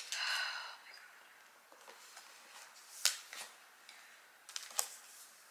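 Cardboard iPad box being handled and opened: a short scraping rustle in the first second, then a few light clicks and taps.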